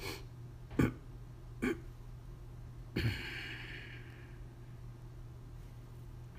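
Four soft computer clicks spaced roughly a second apart, the last followed by a breathy exhale lasting about a second, over a steady low hum.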